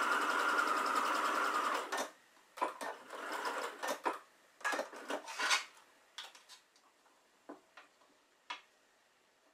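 Computerized sewing machine stitching at a steady speed, stopping abruptly with a click about two seconds in. A few short bursts of sound follow, then scattered light clicks and rustles as the fabric piece is handled.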